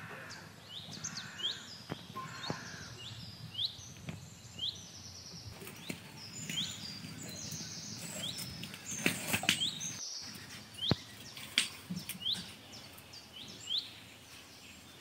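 Small birds chirping over and over in short, sharp notes, with a few sharp clicks and knocks about two-thirds of the way through.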